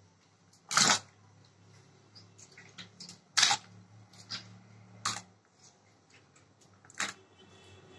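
Pieces of cut magur catfish dropping into a plastic basin of water, with a handful of short splashes a second or two apart and faint clicks and knocks between them.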